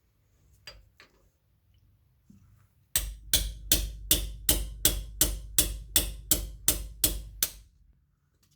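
A hammer striking the end of a socket extension bar, about a dozen steady blows at roughly three a second, driving a 10mm socket into a bread-packed bore to force out a spigot bearing.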